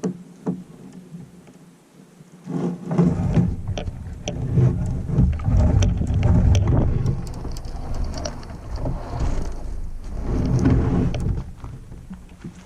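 Wind buffeting the microphone: a deep rumble that comes in about two and a half seconds in and fades near the end, with scattered light clicks.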